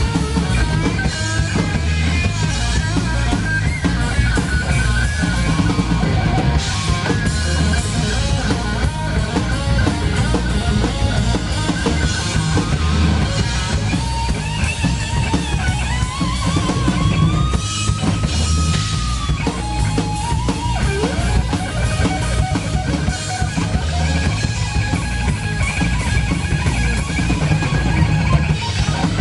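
Live rock band playing loudly: electric guitar over a drum kit, with a long held, bent lead-guitar note in the middle.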